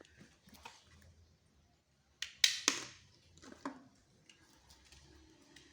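Lego brick pistol being fired: a sharp plastic snap and clatter about two and a half seconds in, then one lighter click about a second later, with soft clicks of the bricks being handled before it.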